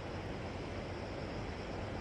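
Steady, even rush of sea surf washing over rocks along a rocky shore, with no single wave breaks standing out.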